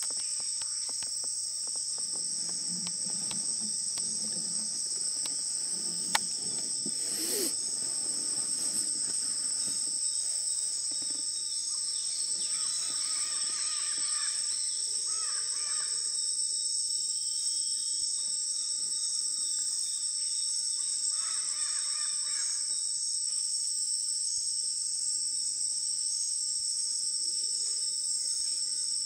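Loud, unbroken chorus of jungle insects, a high steady double buzz, with calls of a bird or frog twice in the middle and a single sharp click about six seconds in.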